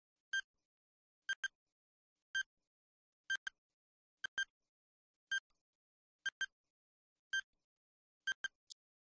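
Quiz countdown-timer sound effect: short, sharp electronic ticks about once a second, several of them doubled into a quick tick-tock pair.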